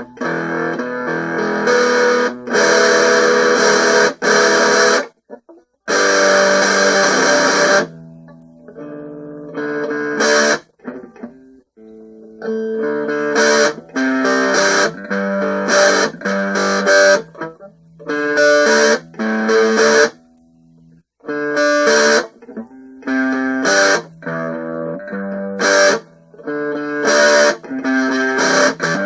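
Guitar being strummed: chords played in short runs that stop abruptly, with brief pauses between them.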